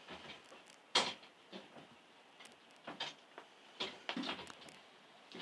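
Faint, irregular clicks and taps, about half a dozen at uneven intervals, the sharpest about a second in, with a duller knock a little after four seconds.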